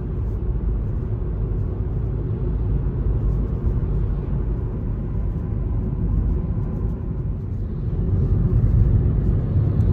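Steady low road rumble heard from inside a car cruising on a highway: tyre and engine noise, a little louder near the end.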